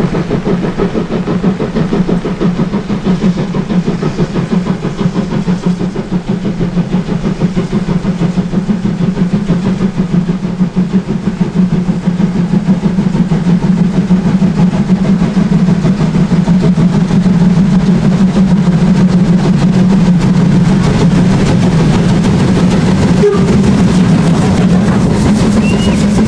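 Two class 01 express steam locomotives double-heading a train up a steep incline, their exhaust beats a fast, continuous chuffing that grows louder as they come close and pass.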